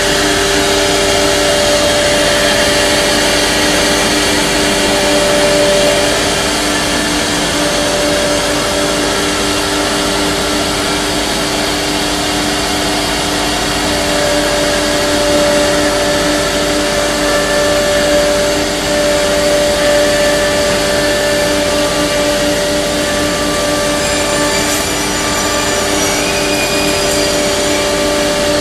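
Sudiao S1-4 four-head CNC router running: its spindles hold several steady whining tones over the rush of dust extraction through the hoses on the heads. One of the tones drops out for a few seconds and comes back.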